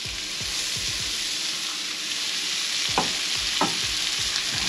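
Chopped onions sizzling in melted butter in a hot pan as they begin to caramelize, with the butter browning. Two sharp knocks of the stirring utensil against the pan come about three seconds in.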